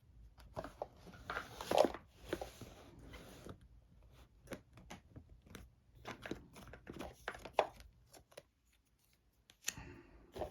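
Board-game components being handled by hand: rustling and crinkling for the first few seconds, then a string of light clicks and taps, a short pause, and one more click near the end.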